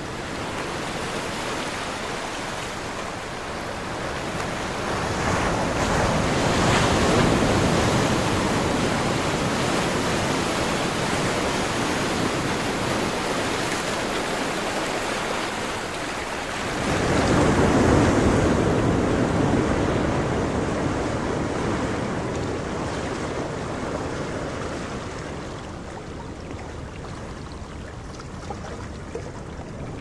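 Ocean waves breaking and washing in, a steady surf that swells twice, the louder surge about seventeen seconds in, and eases off near the end.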